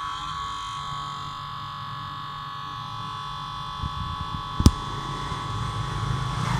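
Laptop cooling fan running noisily: a steady whine over airy rushing and a low hum, the noise put down to dust clogged in the fan. One sharp click sounds about four and a half seconds in.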